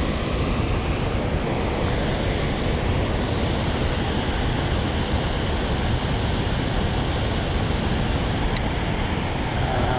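Steady, loud roar of water pouring out of a dam's flood release, a rushing noise without a break.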